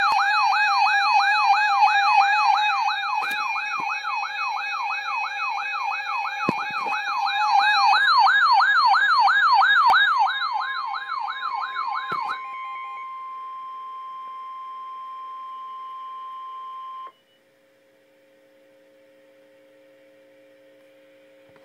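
Electronic emergency alert siren warbling rapidly up and down, about three times a second, over a steady tone. About twelve seconds in the warble stops and a single steady alert tone, the weather radio warning alarm tone, holds alone until it cuts off suddenly about seventeen seconds in. Only a faint hum follows.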